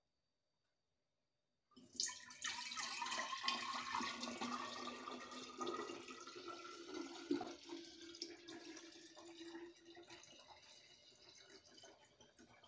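Young homemade red grape wine poured in a steady stream from one glass jar into an empty three-litre glass jar, splashing and gurgling. It starts suddenly about two seconds in and gets gradually quieter as the jar fills.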